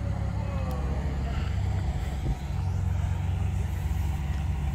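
A car engine idling with a steady low rumble.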